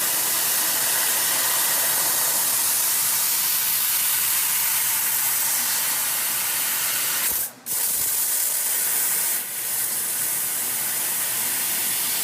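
Fiber laser cutting machine with a 1000 W IPG source, running with a steady, loud hiss of assist gas blowing through the cutting nozzle. The hiss breaks off briefly about two-thirds of the way through and dips again a couple of seconds later.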